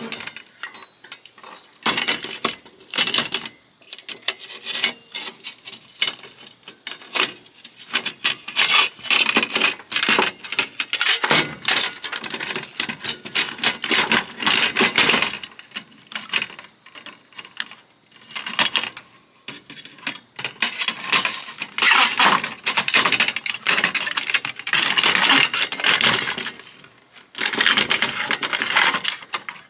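Small metal parts and screws clinking and rattling in irregular clusters of sharp clicks as an oscilloscope is taken apart by hand, with brief lulls between bouts.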